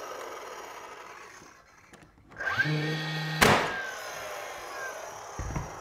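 DeWalt DCN680 cordless 18-gauge brad nailer: after the whir of its motor fades and a short pause, the motor winds up with a rising whine, then fires a brad into a 2x4 with a sharp crack about three and a half seconds in. The motor whirs down afterward, and a dull thump follows near the end.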